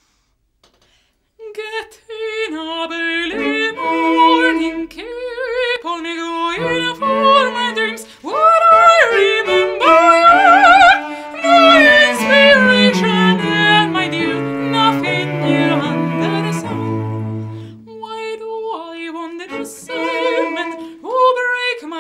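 Cello and piano playing an instrumental introduction, starting about a second and a half in after silence. The cello holds long notes with vibrato over the piano and sinks to low notes near the end.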